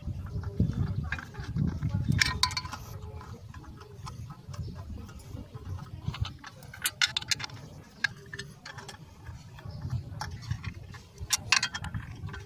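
Scattered metallic clicks and ticks of bolts being threaded in by hand around a clutch pressure plate on the flywheel, over a low rumble.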